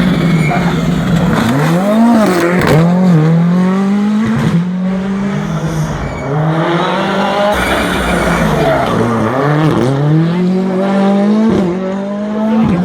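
Rally car engine revving hard, its pitch climbing and falling sharply several times.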